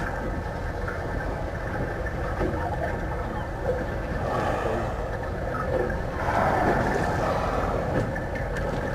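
Boat engine running steadily under wind and water noise, with louder rushing swells about four and six seconds in.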